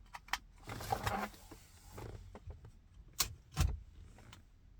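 Hands handling a USB cable and a plastic car-charger splitter: small clicks, a rustle about a second in, then two sharp clicks close together near the end.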